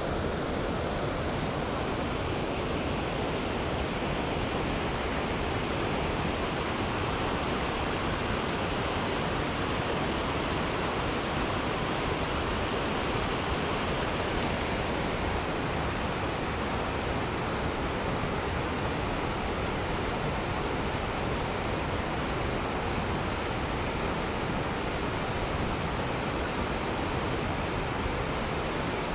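Steady rushing of a mountain stream: an even, unbroken hiss of flowing water.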